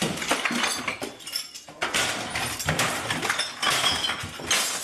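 A continuous run of clinking, crashing clatter, like glass breaking and hard pieces falling, with many sharp strokes and brief high rings.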